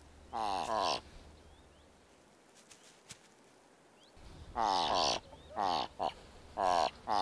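Thick-billed ravens calling: one croak falling in pitch near the start, then, after a pause of about three seconds, a quick series of four or five croaks.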